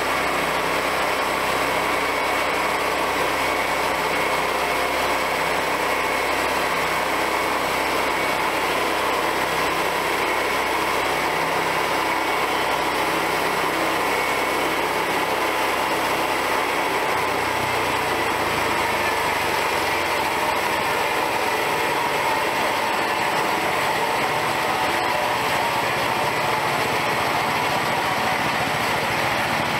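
Small gasoline engine of a homemade bandsaw mill running steadily while the mill saws a log. Its low note changes about two-thirds of the way through.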